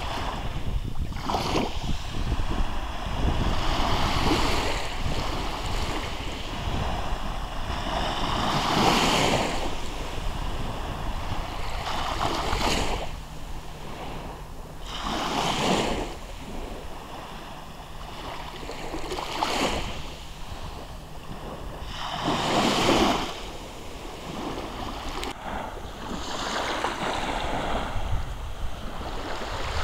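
Small sea waves breaking gently and washing up a sandy shore, each wash swelling and fading every few seconds.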